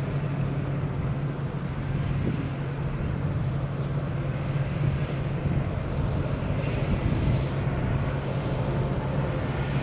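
Crawler-track rotary tiller powered by a Kubota DC95 diesel engine, running steadily as it tills a wet rice paddy: a continuous low engine hum with the clatter of the tracks and tiller mixed in.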